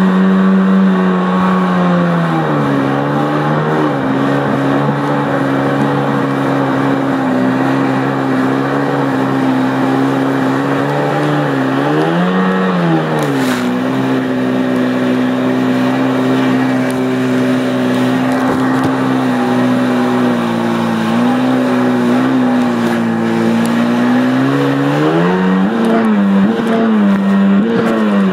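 1993 Sea-Doo XP personal watercraft's two-stroke engine running under way. The pitch drops about two seconds in and then holds steady, briefly rises and falls around halfway, and rises again near the end as the throttle opens.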